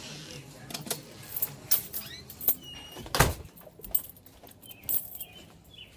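A bunch of keys jingling and clinking in a hand, with one louder knock about three seconds in.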